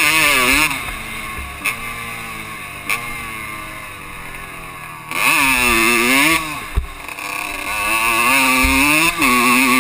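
Honda dirt bike engine revving hard under throttle, its pitch climbing and falling in three loud bursts, with a quieter stretch off the throttle in the first half. A single sharp knock is heard just before the last burst.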